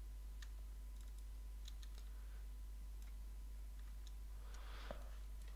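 Faint, scattered computer mouse clicks, about half a dozen spread over several seconds, against quiet room tone.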